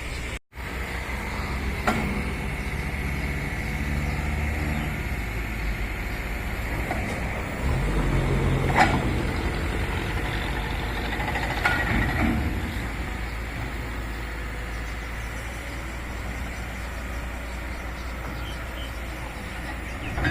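Diesel engine of an amphibious excavator running steadily, working harder for a couple of seconds near the middle, with a few sharp knocks from the machine.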